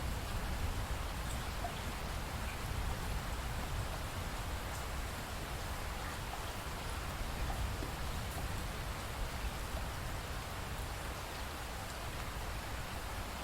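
Steady rainfall, with scattered individual drops ticking over an even hiss and a low rumble.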